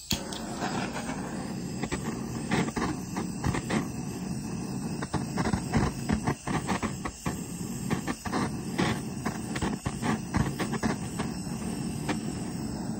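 Heat gun switched on, its fan blowing hot air over a wet acrylic pour to raise cells; it starts abruptly and runs steadily as an uneven rushing noise.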